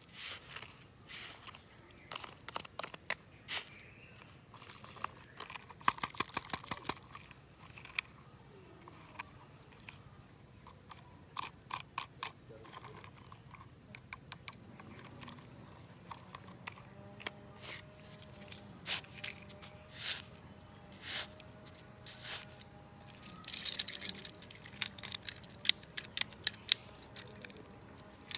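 Plastic toy scoop scraping and crunching through damp sand, with irregular clicks and rattles of small plastic toy trucks being dug out and handled.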